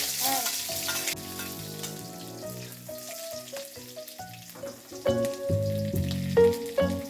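Food added to hot cooking oil in a frying pan, sizzling loudly at first and settling to a quieter, steady fry after about a second. Background music with steady notes grows louder near the end.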